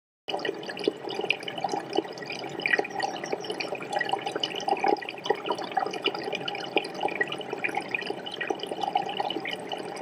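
Water bubbling and trickling: a continuous stream of small drips and bubble pops.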